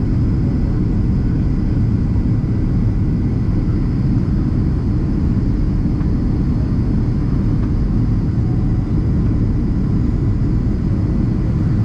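Steady cabin noise of a Boeing 767-300ER on approach, heard from a seat over the wing: an even low rumble of engine and airflow with a faint high steady tone above it.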